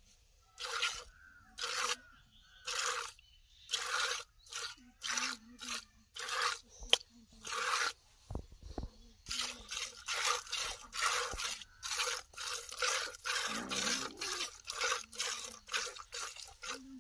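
Hand milking of a cow: streams of milk squirting from the teats into a plastic bucket in rhythmic hissing squirts, about one a second at first and quickening to about two a second in the second half. A single sharp click about seven seconds in.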